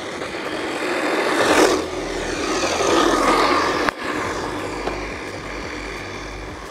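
MJX MEW4 M163 brushless RC monster truck on a full-throttle speed run: the motor's whine and tyre noise rise to a peak twice, then fade after a sharp click about four seconds in.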